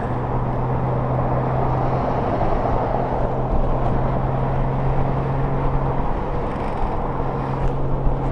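Honda GL1500 Gold Wing's flat-six engine running at a steady highway cruise, under a constant rush of wind and road noise.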